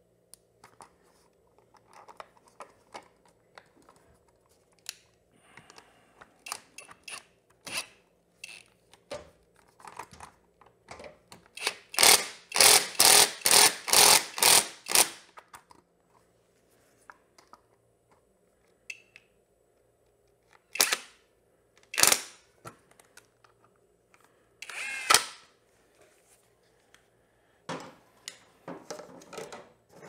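A cordless power tool run in short bursts, driving in the bolts that hold a motorcycle's lower cowl, with light clicks and knocks of bolts, washers and socket being handled. The loudest part is a quick run of sharp strokes about halfway through, then two single loud strokes and a short burst a few seconds later.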